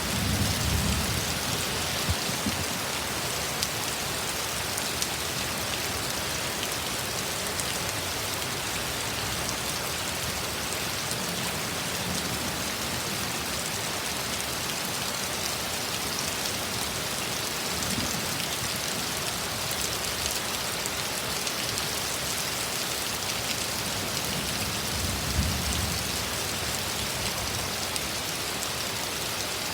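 Heavy thunderstorm rain pouring and splattering steadily. A low rumble swells at the start and again about 25 seconds in.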